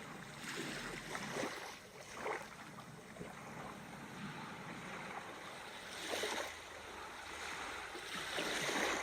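Ocean surf washing in, with two louder waves swelling about six and eight and a half seconds in.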